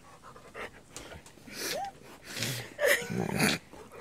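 A woman's stifled laughter: breathy giggles and gasps with a few short squeaky rising notes, getting louder in the second half.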